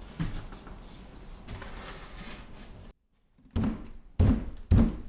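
Handling noise from the wooden shelf pieces, then, after a brief silence, three sharp knocks about half a second apart as the pieces are knocked into place.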